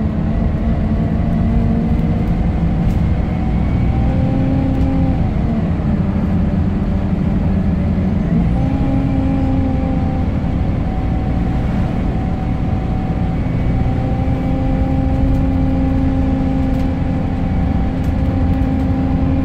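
Scania K270UB bus's five-cylinder diesel engine and driveline heard from inside the passenger saloon while driving. A humming whine climbs in pitch as the bus gathers speed, drops about five seconds in, shifts again about eight seconds in, then runs steady over the engine rumble.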